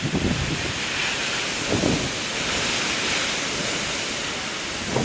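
Storm wind and rain, a steady dense rush, with gusts buffeting the microphone a few times.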